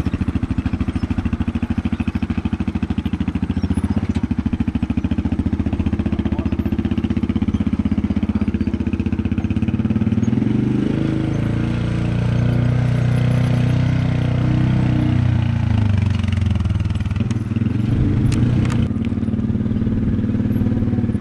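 Yamaha Wolverine side-by-side's engine working slowly under load, its revs climbing and rising in pitch about halfway through, then holding steady. A couple of sharp clicks near the end.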